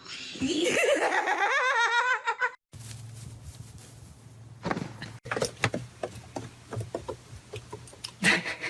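A loud, high vocal sound that rises and then wavers rapidly for about two and a half seconds, then stops abruptly. After the cut come scattered clicks and knocks over a low steady hum.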